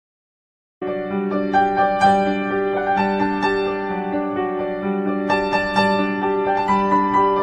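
Background instrumental music, starting after about a second of silence.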